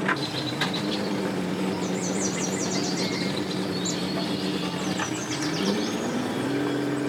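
Boat outboard motor running steadily at low speed as the boat is driven onto its trailer, its pitch rising about five seconds in as the throttle comes up. Birds chirp in quick trills over it.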